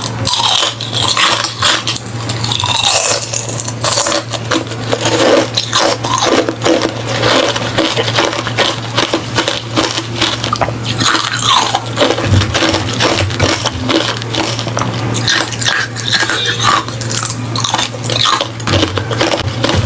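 Close-miked biting and chewing of crunchy hollow ice, a dense, continuous run of sharp cracks and crunches.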